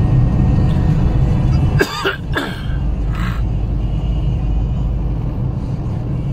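Steady low rumble of a car driving, heard from inside the cabin, with a person coughing twice about two seconds in and once more faintly a second later.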